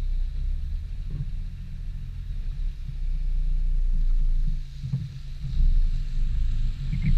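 Low, steady drone of a Volvo saloon's engine and tyre rumble while driving. It dips briefly about five seconds in, then comes back.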